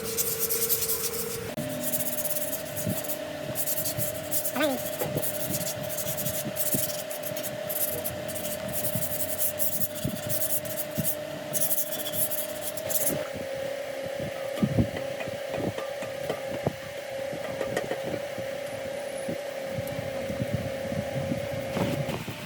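A workshop machine running with a steady whine, over scraping and rubbing noise and scattered clicks, as metal is worked. The whine steps up in pitch about a second and a half in and drops slightly about halfway through.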